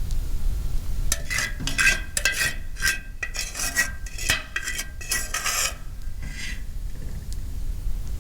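A metal cooking utensil scraping and clinking against a pan in a quick run of strokes with a faint metallic ring, stopping after about five seconds, with one softer scrape a little later.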